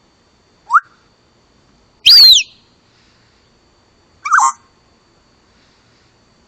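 Parrot calling three times with quiet between: a short rising chirp, a loud whistle that falls in pitch about two seconds in, and a shorter call a little past halfway.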